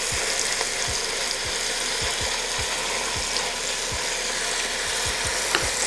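Diced onions sizzling steadily in rendered bacon and sausage fat in an enamelled cast-iron Dutch oven while a spatula stirs them. Soft low taps come every so often as the spatula moves through the pot.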